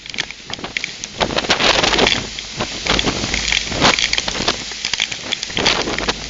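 Severe thunderstorm's straight-line winds battering a security camera's microphone, a loud gusting rush with rain and many sharp ticks and clatters. The wind gusts up about a second in and stays strong.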